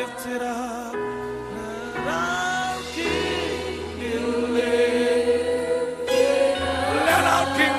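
Christian worship music: a choir singing a worship song in long held notes, with sustained instrumental backing underneath.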